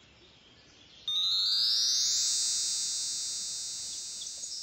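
A high, sustained electronic tone that starts suddenly about a second in, sweeping up as it begins and then holding steady as it slowly fades.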